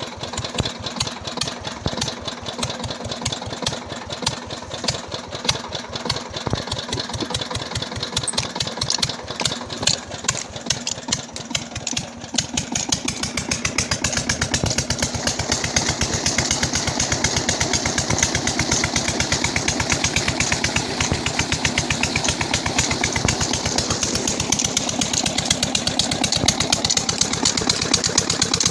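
Rebuilt 18 HP KAM diesel engine running with an even firing beat. About twelve seconds in it speeds up and runs louder and faster.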